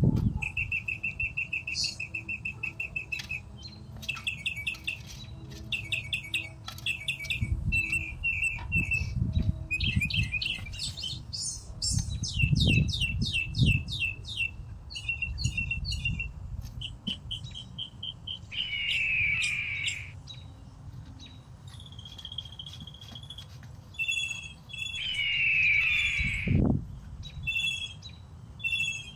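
Small songbirds chirping and singing rapid repeated trills, with a few low thumps partway through and near the end.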